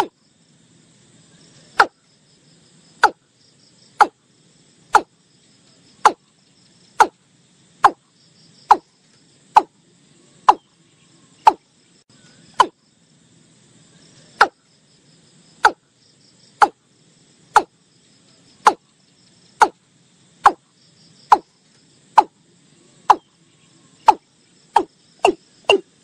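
Watercock calling: a long series of short, repeated notes, about one a second, coming faster near the end.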